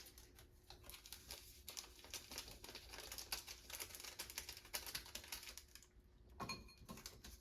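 Faint crinkling of an instant ramen seasoning packet being handled and emptied into the bowl, with a slightly louder rustle about six and a half seconds in.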